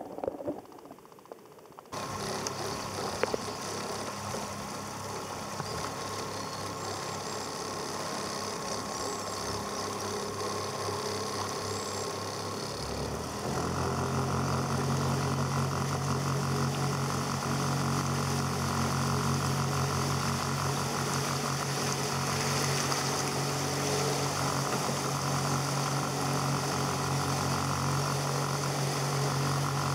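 Muffled underwater sound for about two seconds, then a small boat's outboard motor running steadily with water and wind rushing past. About thirteen seconds in the engine steps up, louder and deeper, and holds there.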